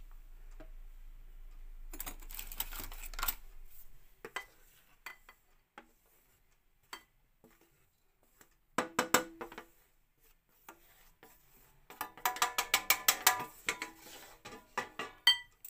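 Gram flour scraped and tipped off a steel plate into a glass bowl, with a few taps of utensils on metal. About nine seconds in there is a short cluster of ringing clinks, and from about twelve seconds a fast run of ringing clinks, about eight a second, as a wire whisk knocks against the bowl.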